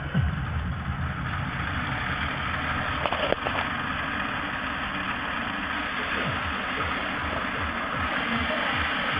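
Steady whirring of Lego Mindstorms NXT motors and gears driving a Lego CNC mill, under electronic music with a regular kick-drum beat.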